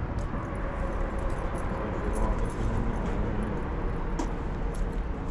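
Steady outdoor rumble, strongest at the very low end: wind buffeting the camera's microphone, with a few faint clicks about two and four seconds in.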